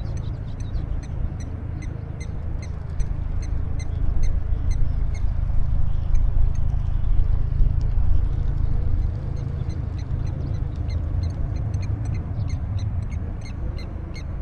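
Wind rumbling on the microphone, with a high, short chirp repeating steadily about three times a second from a small bird or insect.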